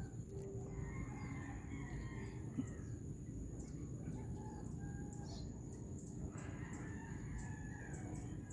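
Roosters crowing faintly in the distance, two long calls, the second starting about six seconds in, over a faint steady high-pitched insect drone.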